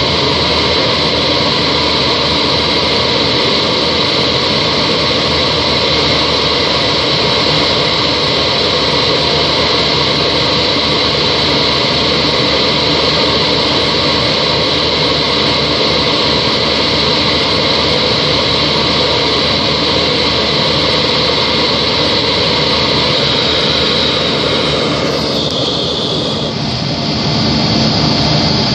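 Cabin noise of a Yak-42 airliner in flight: the steady rush of its three Lotarev D-36 turbofans, with a high turbine whistle over it, heard from a seat inside the cabin. Near the end the sound dips briefly and the whistle shifts in pitch before settling again.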